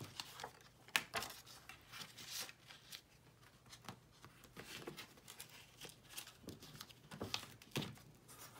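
Paper and card being handled: sheets and tags sliding and rustling against each other in short, faint strokes, with a sharp tap about a second in.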